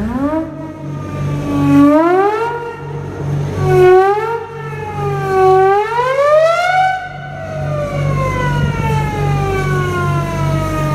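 A ship's siren-type hooter sounding: its pitch swoops up and down several times, climbs to its highest note about seven seconds in, then winds down in a long falling wail. A low throb pulses about two to three times a second underneath.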